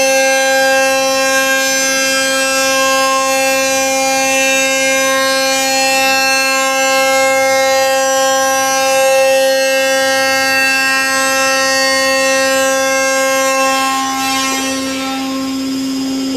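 CNC 5-axis machining center's end mill cutting a hollow extruded metal profile: a loud, steady, high-pitched milling whine with several overtones. About fourteen seconds in the whine changes and thins as the cutter comes out of the cut.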